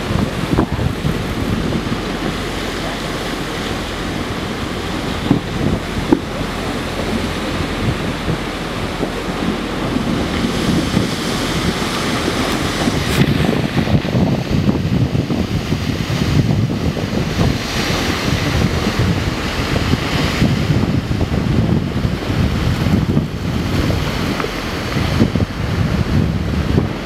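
Steady rushing noise of wind buffeting the microphone and sea water washing around the boat, gusting up and down, with a sharp knock about six seconds in.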